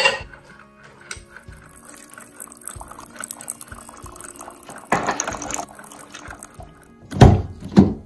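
Keurig 2.0 single-serve coffee maker brewing, coffee streaming into a ceramic mug, under background music. Two heavy thumps come near the end.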